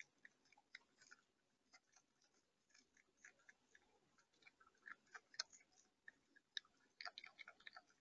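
Faint, irregular clicks and taps of an animal feeding at a camera-fitted seed feeder, coming singly and in small clusters, with a quick run of them about seven seconds in.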